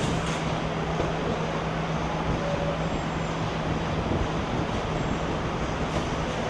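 Steady factory-floor noise of a car assembly line: an even wash of machinery and air-handling noise with a constant low hum, and a few faint clicks.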